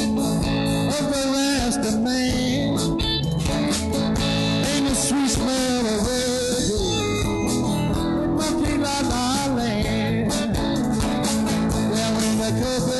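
Live band playing a blues-rock song with guitars, electric bass and drum kit.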